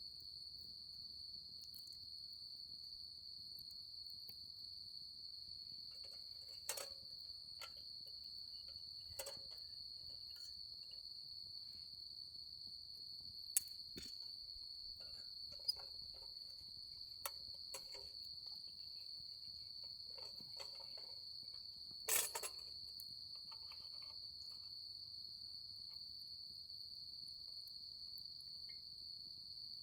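Autumn insects trilling in one steady, unbroken high tone. Scattered light clicks and knocks, the loudest about two-thirds of the way through.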